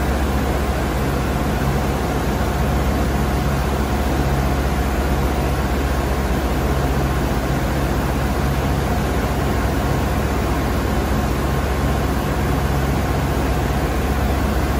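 SNK Nissin BP130 CNC horizontal boring mill running as its pallet table rotates: a steady machine hum with a low drone and a faint steady whine.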